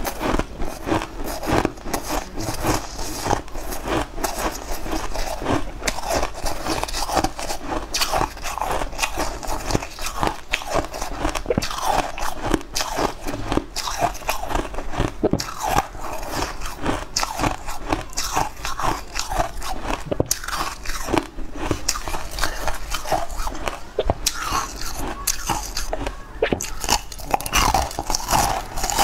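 Crunching and chewing of a hard, blue crystal-coated candy stick, close to a clip-on microphone: a dense, irregular stream of sharp crunches, with a fresh bite into the stick near the end.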